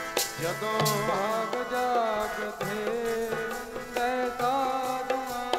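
Punjabi kirtan music: a harmonium plays the melody over sustained reed tones, with dholak drum strokes keeping a steady beat and a voice bending notes over it.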